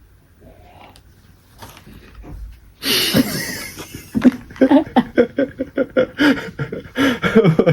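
People laughing hard, breaking out suddenly about three seconds in, then going on in quick repeated bursts.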